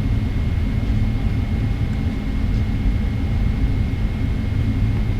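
Steady low rumble inside the cabin of a Boeing 777-300ER taxiing with its GE90-115B engines at idle, with a faint steady high whine running through it.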